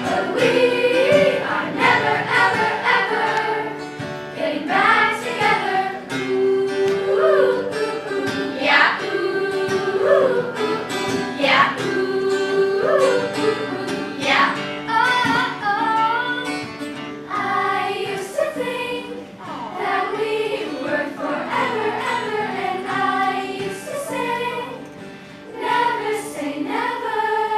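School choir singing a song with instrumental accompaniment, voices holding long sustained notes between moving phrases.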